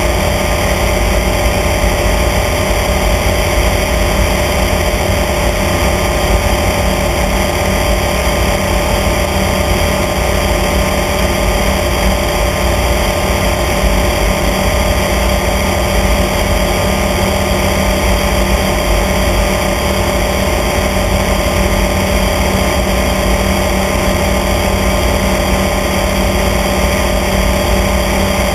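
Small aircraft's engine and propeller running steadily in cruise flight, a constant drone at an unchanging pitch.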